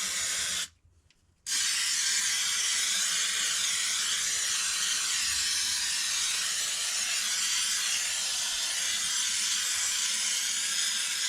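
Aerosol can of Flex Seal-type rubberized spray sealant spraying with a steady hiss. The spray stops briefly just under a second in, then starts again and runs on without a break.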